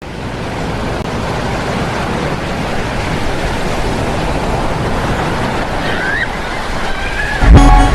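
Steady rushing noise of ocean waves and surf, as a tsunami sound effect. Near the end a loud alarm tune of stepping tones with a beat cuts in abruptly.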